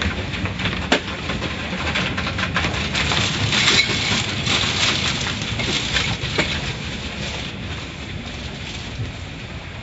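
Automatic car wash running over a car: a rushing spray of water with scattered slaps and knocks, loudest in the middle and easing off towards the end.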